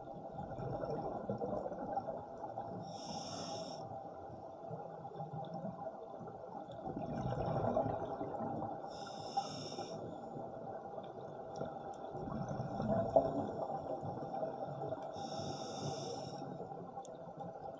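Scuba diver breathing through a regulator underwater: a short hiss about every six seconds, three times, with the bubbling rumble of exhaled air swelling in between.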